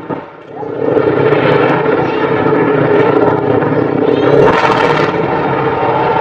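Explosive demolition of high-rise tower blocks heard from among a large watching crowd. Steady rumbling crowd noise, with a short burst of sharper, higher noise about four and a half seconds in as the blocks start to come down.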